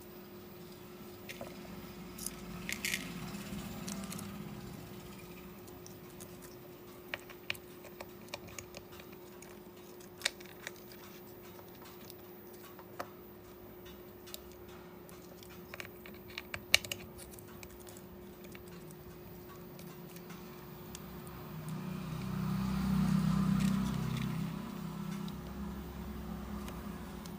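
Scattered light clicks and taps of small tools and phone parts being handled during a phone display repair, over a steady hum. A low rumble swells and fades about three-quarters of the way through.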